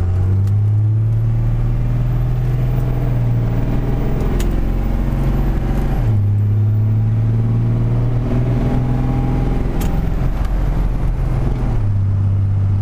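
Turbocharged Cummins 5.9-litre inline-six diesel in a Dodge Ram pulling hard at full throttle: the engine note climbs, drops suddenly about six seconds in as the 45RH automatic upshifts, climbs again, then drops once more near the end. A faint high whine rises and falls with it.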